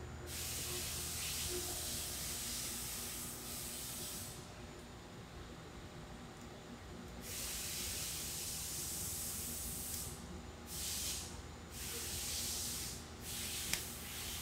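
Bursts of hissing noise picked up by the clip-on microphone, a few seconds long at first and then shorter, with gaps between them. Near the end there is one sharp click as the 1911 pistol is handled.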